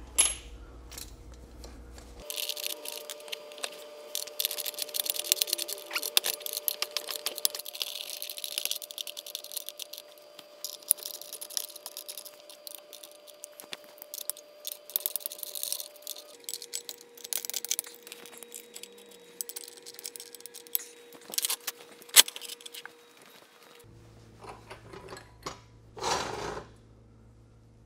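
Cast-iron Wilton 79A rapid-acting bench vise being worked by hand: irregular metallic clicking, clinking and rattling as the handle and screw are turned and the parts move. About 26 seconds in there is one louder, brief scrape as the wood-faced jaw is pushed along.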